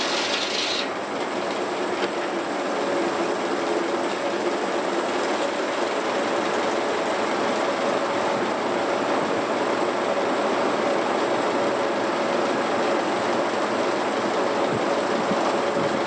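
Antique engine-driven circular sawmill running steadily, its big blade spinning free between cuts, with a constant mechanical drone and rattle. A brief high hiss comes in the first second.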